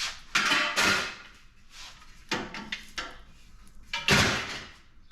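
Aluminum scrap pieces clanking and clattering as they are handled and knocked about. There are a few sharp metal hits in the first second, another about two and a half seconds in, and the loudest clatter about four seconds in.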